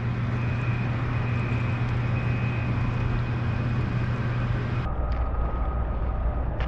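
Steady low hum of a boat motor, with a faint high whine over it. About five seconds in, the pitch of the hum drops abruptly and the sound turns duller.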